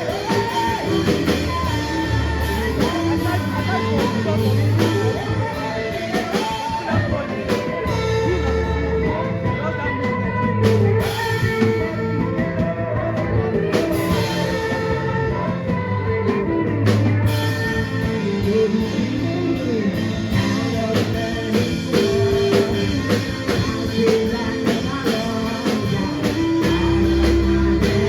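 Gospel worship song with singing over a band of guitar, bass and drums.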